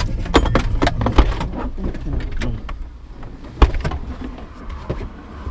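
Seatbelt buckles clicking and Jeep doors being opened as two people climb out, over a low engine rumble that dies away about two and a half seconds in. A loud thump about three and a half seconds in, as of a car door, and a last knock near the end.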